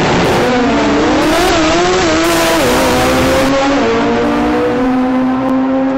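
Turbocharged SR20-engined Nissan S15 drag car launching down the strip at full throttle beside another car. The engine note climbs and drops at gear changes about two and a half and four seconds in, then holds steady.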